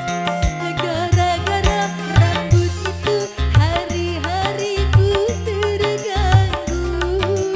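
Live dangdut band music: a steady hand-drum beat about twice a second with bass and cymbals, under a lead melody that slides and bends in pitch.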